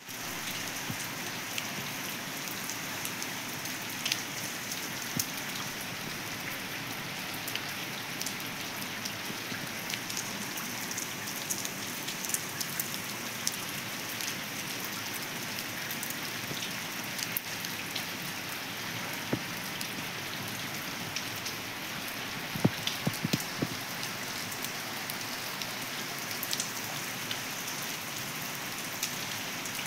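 Steady rain falling on a flat wet concrete rooftop, an even hiss with many single drops ticking and splashing close by; a few louder taps come about three quarters of the way through.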